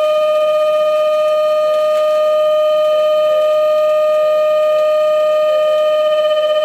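Lathe boring bar chattering during internal turning: a steady high-pitched whine with overtones, with a slight warble near the end.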